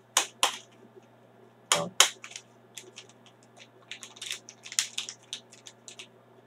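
A foil-lined pH buffer-powder sachet crinkling as it is handled and flexed between the fingers: irregular short crackles and rustles, two sharp ones about two seconds in and a busier run in the second half.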